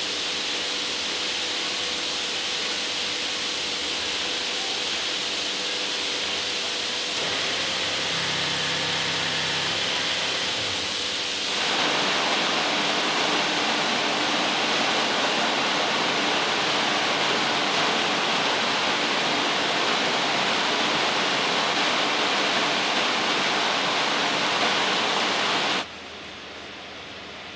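Textile mill machinery running: a dense, steady hiss with faint steady hums underneath. It changes abruptly about 7 and 12 seconds in, louder after the second change, and drops off sharply shortly before the end.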